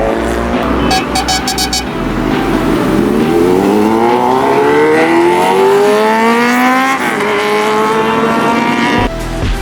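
Superbike engine accelerating hard, its note climbing steadily for several seconds, then holding steadier before music with a heavy beat cuts in near the end.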